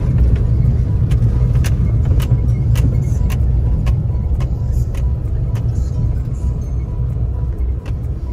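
4x4 vehicle driving with a steady low rumble and frequent sharp knocks and rattles.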